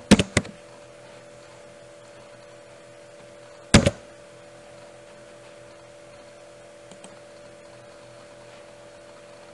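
Computer keyboard keystrokes: four quick clacks at the start, then one louder single click about four seconds in as the search is submitted, over a steady electrical hum.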